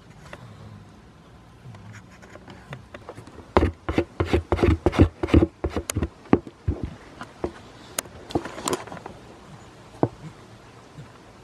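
A goat mouthing and bumping against the camera right at the microphone: a close, irregular run of knocks and rubbing scrapes for several seconds in the middle, then a single knock later on.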